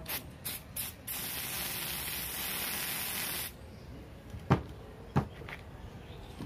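Aerosol spray can spraying onto a cloth: a few short spurts, then one steady hiss of about two and a half seconds. Two sharp knocks follow near the end.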